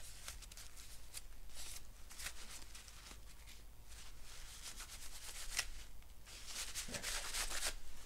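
Paper towel rubbing over a processor's metal lid in short, uneven wiping strokes, cleaning off old thermal paste.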